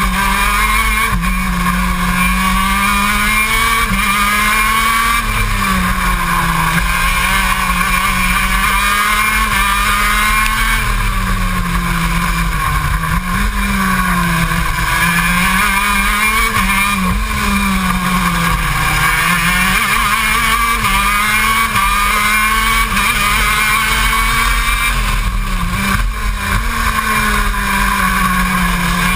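KZ2 kart's 125cc two-stroke engine at racing speed, heard from on board; its pitch climbs and drops sharply again and again as the kart accelerates, shifts and slows for corners.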